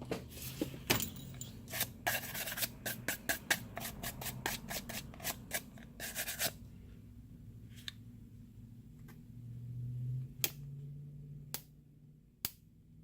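Quick scratching and clicking of small hand tools and parts against a phone's frame, dense for about six seconds, then a few separate clicks.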